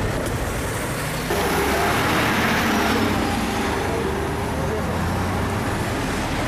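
Road traffic with an engine running close by; a vehicle passes, swelling and fading from about one to four seconds in.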